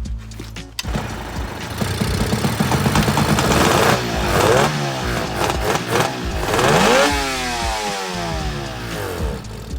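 Suzuki GT185's two-stroke twin running through newly welded expansion chambers, revved up and down: the pitch climbs and falls twice, dropping after revs about four and seven seconds in. It cuts in suddenly just under a second in.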